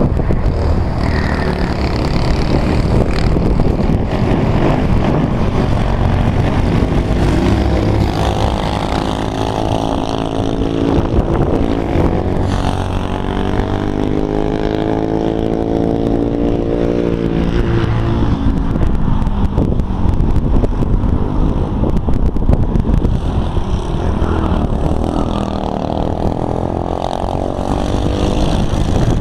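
Modified 196cc Honda GX200-type single-cylinder kart engine (a 24 hp open build) running hard as the kart laps. Its pitch climbs under acceleration and drops off as it slows, with a long climb and fall in the middle and another climb near the end.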